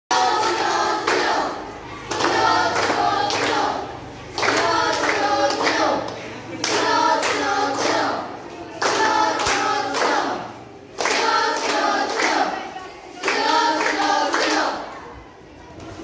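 A group of students singing together in unison, in about seven short phrases, each roughly two seconds long, with brief dips between them.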